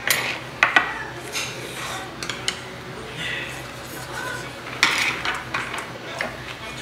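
Metal spoons and chopsticks clinking and scraping against earthenware ttukbaegi bowls and steel rice bowls while eating soup, a scatter of sharp clinks, the loudest near the start and about five seconds in.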